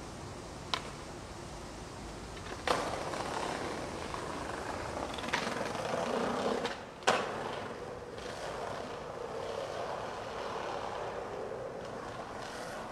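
Skateboard wheels rolling on pavement, with sharp clacks of the board: a light one under a second in, a harder one near three seconds, and the loudest a little after seven seconds.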